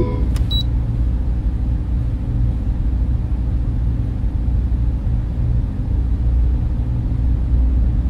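Steady low rumbling drone, a sound effect standing in for a fusion reactor running after start-up, with nearly all its weight in the deep bass and no change in level.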